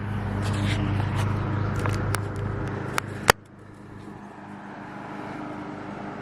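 Tractor engine idling with a steady low hum, with a few sharp clicks over it. About three seconds in, a loud click cuts the hum off and a quieter, even hiss takes over.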